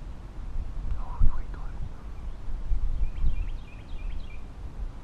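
Wind buffeting the microphone with a steady low rumble, with a brief thump about a second in. Near the end a bird calls a quick run of five or six short, high chirps.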